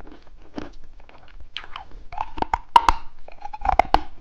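Crunching and clicking of a small mushroom-shaped candy being bitten and chewed, in irregular bursts that grow denser in the second half.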